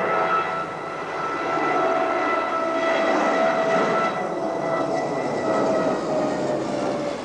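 A de Havilland Canada Dash 7 turboprop airliner flying past, a steady engine-and-propeller drone with several whining tones that sag slightly in pitch near the end as it goes by. It was measured on a noise meter at a peak of about 86 decibels, judged quiet for an aircraft of its type.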